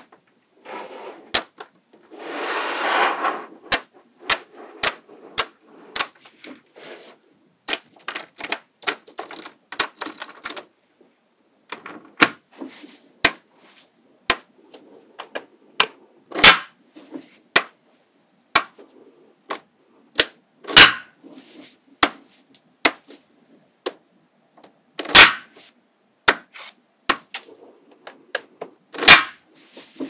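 Small neodymium magnetic balls clicking and snapping together as they are placed by hand, in irregular sharp clicks with a few much louder single snaps. A short rattle of loose balls comes about two seconds in.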